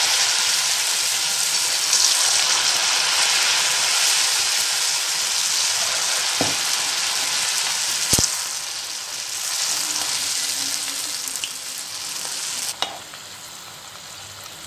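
Batter-coated potato peels deep-frying in hot oil in a metal kadai: a loud, steady sizzle, with two sharp clinks of the metal spoon against the pan around the middle. Near the end the sizzle drops suddenly to a quieter level.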